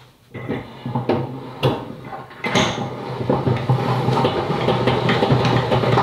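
Three-frame hand-cranked stainless steel honey extractor being spun up: a few knocks as the crank starts turning, then a steady metallic whirring and rattling of the gearing and frame basket inside the steel drum, growing louder from about two and a half seconds in.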